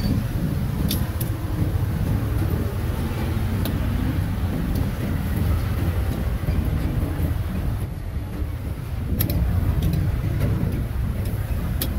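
Steady low rumble of street traffic, with a few sharp knocks of a cleaver striking a wooden chopping block while slicing grilled sausage.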